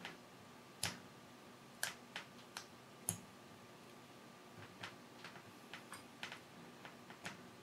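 Faint, irregular light clicks and clinks of small copper pieces being handled and fitted together by hand, about a dozen in all, the sharpest about three seconds in.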